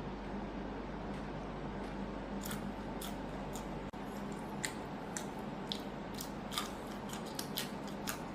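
Crispy chicken crunching as it is bitten and chewed: a run of sharp, irregular crackles, thicker in the second half, over a steady low hum.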